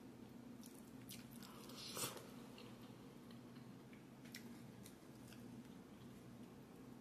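Faint close-up chewing of ramen noodles, with a few soft mouth clicks and one short, louder wet sound about two seconds in, over a low steady hum.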